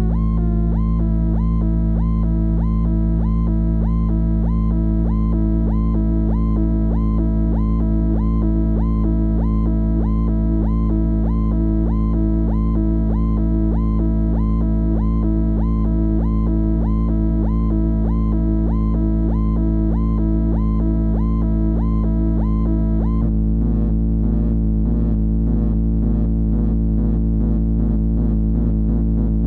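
MFOS Weird Sound Generator analog drone synth playing a steady low drone, with a higher tone swooping in a repeating pattern about twice a second. About three quarters of the way through, the upper pattern changes abruptly to a faster, buzzier flutter, as when a knob is turned.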